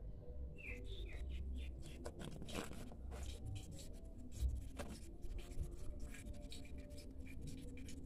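Water trickling and spattering out of a washing machine's drain hose onto a concrete floor: dense, irregular small splashes and ticks over a low rumble, starting about half a second in.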